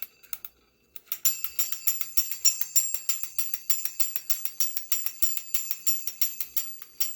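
Antique wind-up Pinocchio toy's clockwork mechanism running in its metal body: quick, even metallic clicks, about six a second, each with a bright ring. They start again after a brief pause about a second in.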